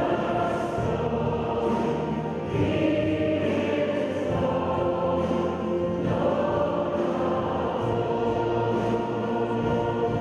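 Choir and congregation singing a hymn in a cathedral, a steady sung chorus with held chords.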